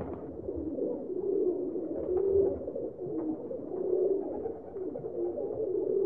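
A flock of domestic pigeons cooing, many low coos overlapping without a break.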